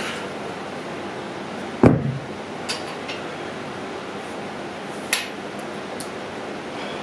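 Weight plates clanking on a barbell sleeve as plates are changed on a Smith machine bar: one heavy clank with a short ring about two seconds in, then a few lighter metallic clicks.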